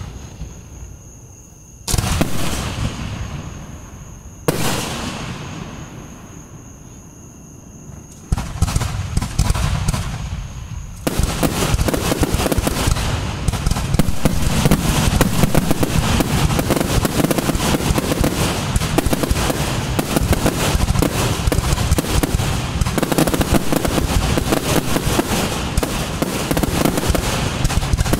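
Aerial fireworks: two single shell bursts a couple of seconds apart, each dying away slowly, then scattered crackling from about eight seconds in. From about eleven seconds in, many shells burst in quick succession with continuous crackle, a finale barrage.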